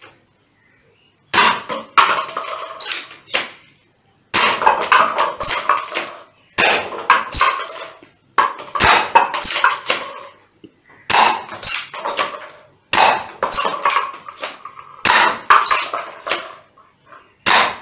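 NSM302 toy gun firing hard plastic bullets about eight times, roughly every two seconds. Each shot is a sharp snap followed by a rattling clatter as paper cups are knocked off the table and onto the floor.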